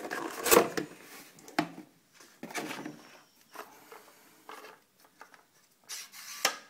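A cardboard box being handled and a plastic caulking gun taken out and turned over in the hands: a string of rustles, knocks and clicks with short quiet gaps between them, the loudest about half a second in and a sharp click near the end.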